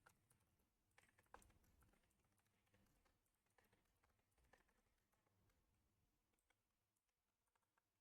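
Near silence with very faint, irregular computer keyboard key clicks, one a little louder about a second in.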